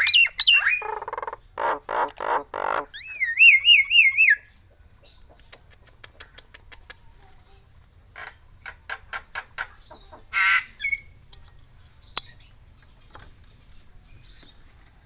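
Nias hill myna calling: loud harsh squawks, then about three seconds in a wavering whistle that rises and falls like a siren, which the bird mimics. After that come softer runs of rapid clicks and chatter, and one louder call near the middle.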